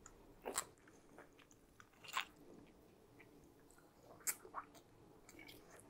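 Faint eating sounds of a person chewing a mouthful of spaghetti with clams: soft mouth noises broken by a few brief smacks and clicks, about half a second in, about two seconds in and just past four seconds, as a strand of spaghetti is drawn in.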